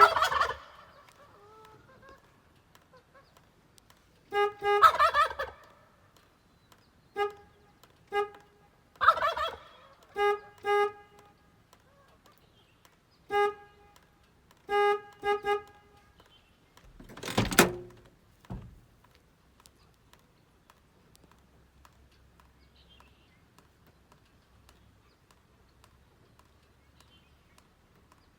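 A turkey gobbling three times in warbling bursts, between short honks of a horn. The honks are steady-pitched and come singly and in quick runs of two or three. A brief noisy burst comes about two-thirds of the way in.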